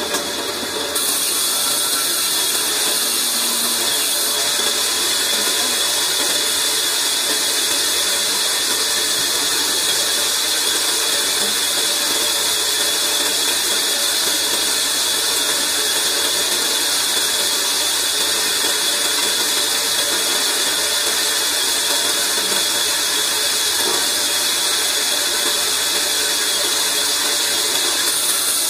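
Large wheel band saw ripping a log lengthwise: a steady sawing noise with a strong hiss, which steps up about a second in as the blade bites into the wood and holds through the cut.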